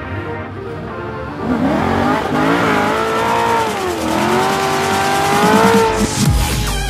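C6 Chevrolet Corvette doing a burnout: the rear tyres squeal with a wavering pitch from about a second and a half in, over the running V8. A loud low rumble comes in near the end, with background music underneath.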